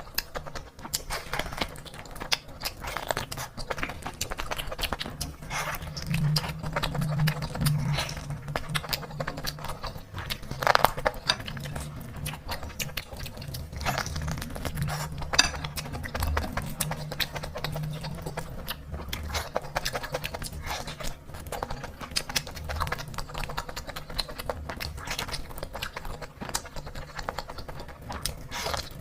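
Close-miked eating sounds: chewing with a steady run of quick clicks and crunches.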